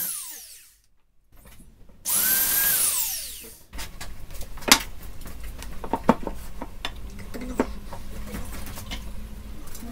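Corded power drill boring holes into a wooden cabinet panel. The motor's whine winds down in the first second. About two seconds in it spins up again for a second hole, holds for a second and a half, and winds down. After that come a few sharp clicks and knocks.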